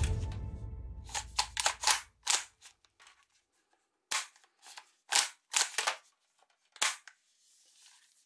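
Toy Kar98k bolt-action rifle's bolt being worked by hand: a run of sharp clicks and clacks, a quick cluster and then single clicks spaced a second or so apart. It opens with a deep boom that fades over about two seconds.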